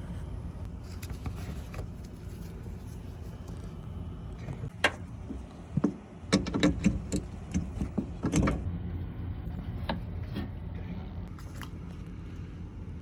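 A steady low rumble, with a sharp click about five seconds in, then a cluster of knocks and rattles lasting about two and a half seconds. These are hand noises of the driver's-side headlight parts being refitted behind the wheel well: the new low-beam LED bulb going back into the housing and the plastic wheel-well cover being put back.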